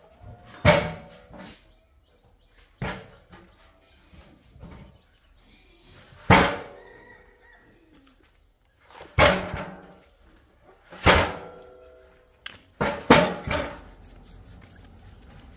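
Clunks and knocks of a large hopper feeder on a metal stand bumping against concrete as it is tipped and rolled along. There are about seven loud knocks, several of them with a short metallic ringing, with a quick double knock near the end.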